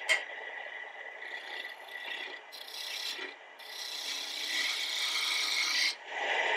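Wood lathe running while a bowl gouge cuts the spinning wood blank: a hissing, scraping cut that comes and goes, louder in the second half and breaking off briefly near the end. Two sharp clicks right at the start.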